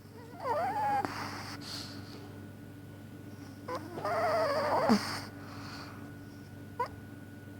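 A sleeping chihuahua snoring: two high-pitched, wavering, squeaky snores about a second long each and some three and a half seconds apart, with a brief faint squeak near the end.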